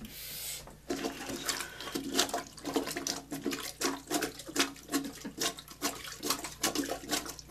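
Rubber plunger pumping in a toilet bowl blocked with too much toilet paper: a regular run of wet squelching, sloshing strokes, about two or three a second, after a short hiss at the start.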